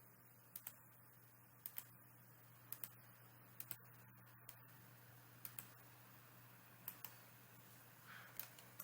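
Faint computer mouse clicks, mostly in quick pairs, coming about once a second as points are placed one after another, over a low steady hum.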